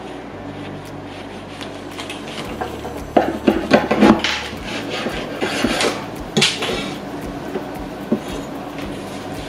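Clinks and knocks of tableware and utensils being handled, busiest from about three to six and a half seconds in.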